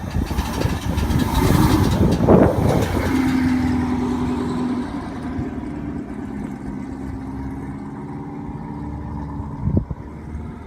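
Chevrolet Corvette C5's V8 engine running, busy and loud for the first few seconds and then settling to a steadier, quieter run with a faint steady tone. A single sharp click comes near the end, the kind of click noise the owner is trying to track down.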